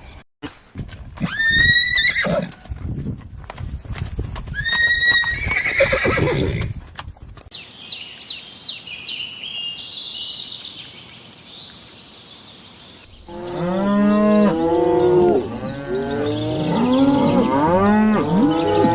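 A string of animal calls in separate takes. First come two rising calls about three seconds apart, then a fast, high-pitched quavering call. Many overlapping calls of varying pitch fill the last third.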